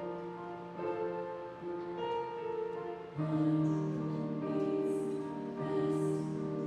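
Slow instrumental music of sustained chords that change about once a second, growing fuller and louder about three seconds in.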